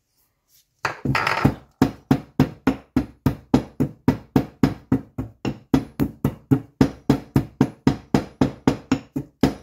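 Pestle pounding peppercorns in a ceramic mortar. After about a second of quiet, a brief scrape or grind gives way to a steady run of knocks, about four or five a second, each with a short ring from the mortar.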